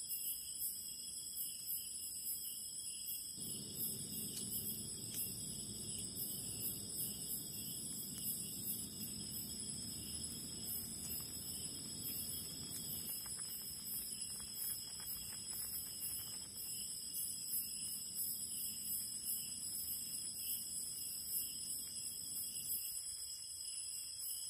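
Chorus of night insects: a steady, high chirring with rapid pulses. A low rushing noise joins about three seconds in and fades near the end.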